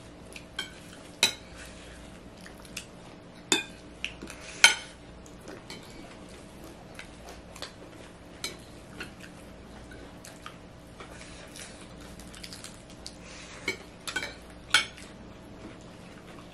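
Metal spoons clinking and scraping on ceramic plates as people eat, in irregular sharp clinks with the loudest a few seconds in and again near the end. A faint steady hum runs underneath.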